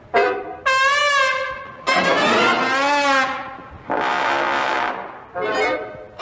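Cartoon orchestral score: brass, trumpet-like, playing a run of four or five held notes whose pitch wobbles widely, each starting sharply and fading before the next.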